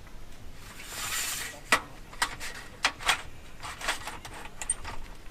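Irregular sharp knocks and clicks, about half a dozen over a few seconds, after a short rushing hiss about a second in.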